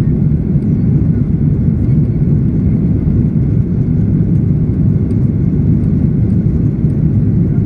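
Steady low rumble of a Boeing 737-800's CFM56 turbofan engines and rushing air, heard inside the passenger cabin as the jet climbs after takeoff.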